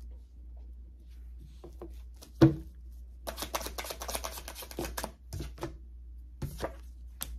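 A tarot deck shuffled by hand: a dense run of rapid card flicks for about two seconds, with scattered single card clicks after it. A single sharp knock, the loudest sound here, comes about two and a half seconds in.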